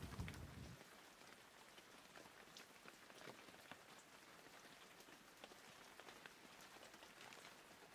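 Faint patter of light rain: scattered small ticks over a quiet background.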